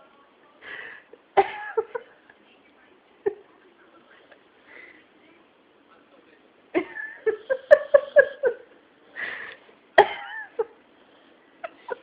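Snoring: soft, noisy breaths about every four seconds. Between them come louder, short sounds with a pitch, including a quick run of them from about seven to eight and a half seconds in.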